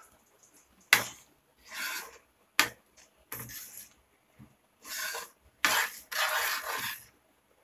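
Spoon scraping and stirring thick rajma gravy in a kadai, in several short strokes, with two sharp clinks against the pan in the first few seconds.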